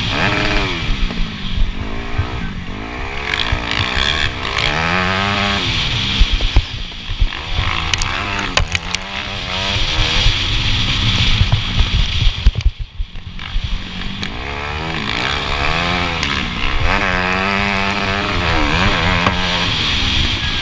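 Motocross bike engine heard from on the bike, revving up and falling back again and again as it is raced through the gears, with the throttle shut briefly about two-thirds of the way through and a few sharp knocks as it rides over the rough track.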